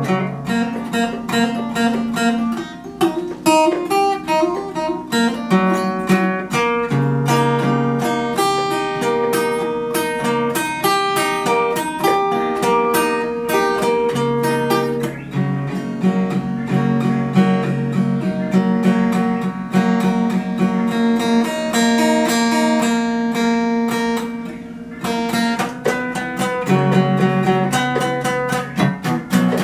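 Solo steel-string acoustic guitar played as an instrumental, with quick picked melody notes over bass notes and no singing. There is a short break about 25 seconds in before the playing picks up again.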